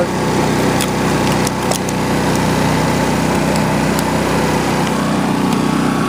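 Champion 2800-watt inverter generator running steadily with no load, heard up close. A few light clicks come about one to two seconds in.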